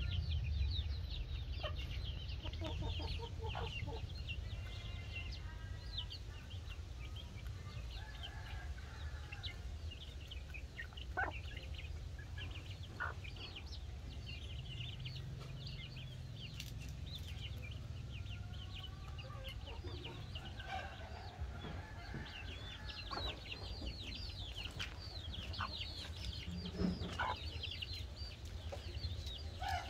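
Chicks peeping continually in short, high, falling notes while the mother hen clucks now and then, over a steady low rumble.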